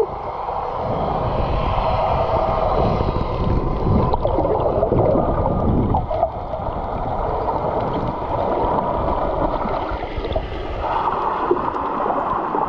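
Muffled underwater noise: water rushing and gurgling against a camera held underwater, a steady hiss with no clear tones.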